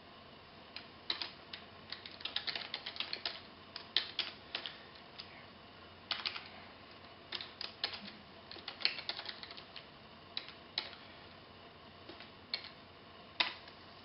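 Typing on a computer keyboard: irregular key clicks, some single and some in quick runs, with short pauses between.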